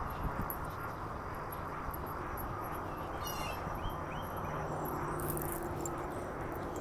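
Footsteps of sneakers walking on asphalt, heard through steady rustling noise on the phone's microphone, with a short high chirp a little over three seconds in.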